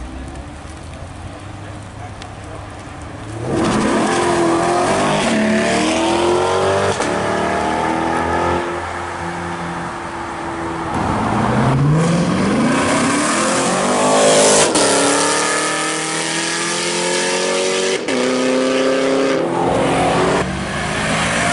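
Chevrolet C8 Corvette's V8 accelerating hard away, exhaust rising in pitch and dropping back several times as it shifts up through the gears. The engine note is lower and quieter for the first few seconds, then gets loud.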